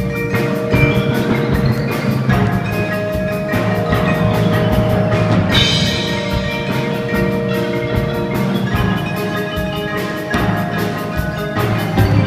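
A percussion ensemble playing a tune, with marimba or xylophone melody lines over rapid struck notes, bell-like sustained tones and drums.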